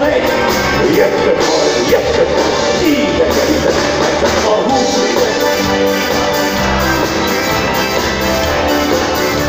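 Live band amplified through a PA, with a male singer over drum kit, bass guitar, keyboard and accordion, playing steadily.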